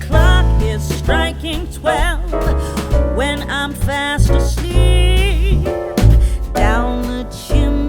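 Background music with a singing voice over bass and a steady beat.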